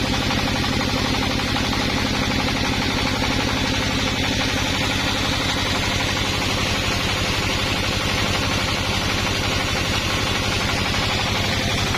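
Sawmill engine running steadily at a constant speed, with an even low pulse and no change in pitch.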